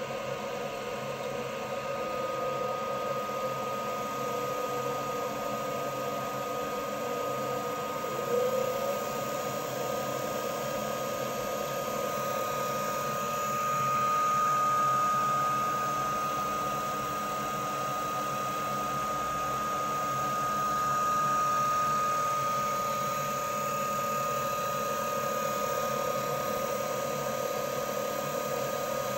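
Silverson L5M-A high shear laboratory mixer running steadily with its workhead spinning in a beaker of water: a steady mechanical whine with a high tone through it. There is a brief bump about eight seconds in, and the loudness swells gently twice later on.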